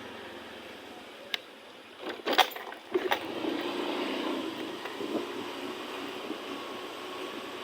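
Steady running noise of a road vehicle under way, with a few sharp clicks or knocks about one and a half, two and a half and three seconds in, the middle ones the loudest.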